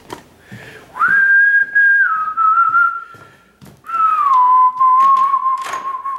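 A person whistling a few long held notes: a high note stepping down to a lower one, a short break, then a note that slides down and is held. A couple of sharp clicks from a door latch come partway through.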